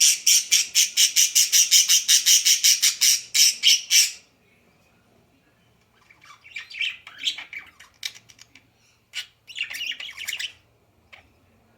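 A bird calling: a fast run of loud, high-pitched squawks, about seven a second, for roughly four seconds, then two shorter bursts of chirping later on.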